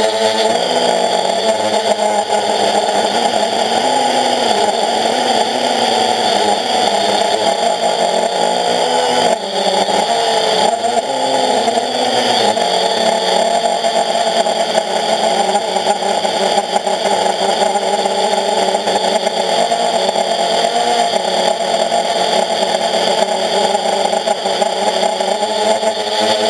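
Quadcopter's electric motors and propellers whirring loudly, heard from on the airframe, the pitch wavering up and down as the throttle changes, with a brief drop about nine seconds in.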